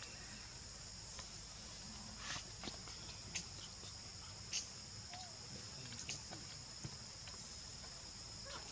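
Steady high-pitched insect chorus, with scattered light clicks and taps as macaques pick peanuts from a metal tray.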